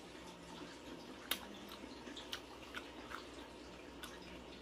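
Close-up mouth sounds of a person chewing soft persimmon: faint, scattered wet clicks and smacks, a few every second.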